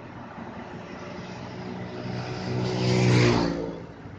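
Komatsu PC200 excavator's diesel engine running while the bucket digs riverbed mud. Partway through, a loud engine surge builds for about a second and a half, then falls away sharply.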